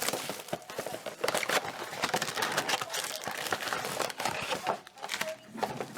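Wrapped trading-card packs crinkling and rustling, with quick clicks and crackles, as they are pulled out of their cardboard boxes.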